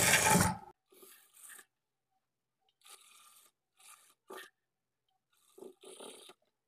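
Sewing machine stitching a seam in a short run that stops under a second in. It is followed by faint, scattered rubbing and scraping sounds.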